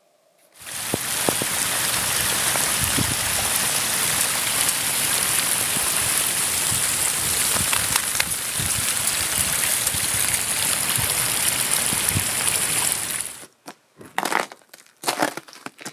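Steady hiss of rain on wet, half-frozen ground, with small crackles, which cuts off suddenly near the end. It gives way to a few crunching footsteps of spiked boots on ice-crusted snow.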